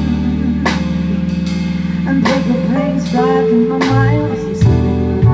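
Live band playing an instrumental passage: held bass notes under a few drum hits and shorter pitched notes.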